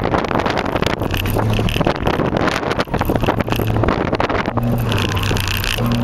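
Engine and road noise inside a Toyota Camry LE (cold air intake, aftermarket muffler) being driven hard through an autocross course, with heavy wind buffeting on the microphone. A steady engine note comes through about a second in and again from about four and a half seconds.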